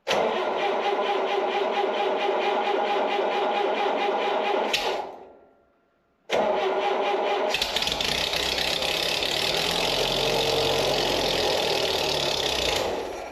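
Gasoline engine of a 1972 Allis Chalmers M65 road grader being cranked by its starter for about five seconds, then cranked again; about seven seconds in it catches and runs, then dies away near the end. It starts at half throttle with the choke on, with the ignition coil fed straight from the battery, which the owner takes as a sign that weak spark from the voltage drop may be the cause of the hard starting.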